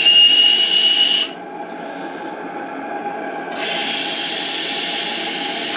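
Gas regulator and burner of a live-steam model boat hissing, with a high steady squeal over the first second or so. The hiss then drops away and comes back strongly about three and a half seconds in. The single-diaphragm regulator, fitted with a doubled membrane, is cutting and reopening the gas as it oscillates at its regulation pressure.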